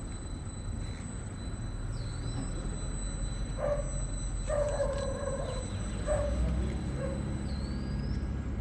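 Quilt and blanket washing machine running with a steady low rumble. Several short, higher-pitched squeal-like sounds come in its middle stretch.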